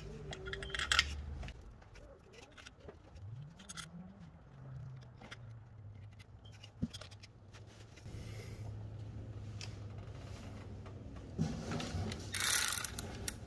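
Scattered small metal clicks and scrapes of the water pump bolts being handled and started into the engine by hand, with a louder burst of scraping near the end.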